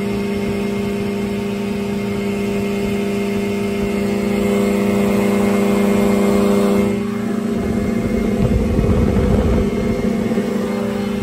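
CGS Hawk ultralight's engine and propeller running steadily at high power in a climb. About seven seconds in, the steady drone gives way to a rougher, fluttering low rumble, like wind buffeting the microphone.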